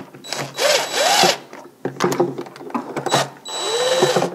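DeWalt cordless driver with a socket, run in short trigger pulls to drive the carburetor mounting bolts home on a small engine. Its motor whine rises and falls in pitch with each pull, about a second in and again near the end, with small clicks in between.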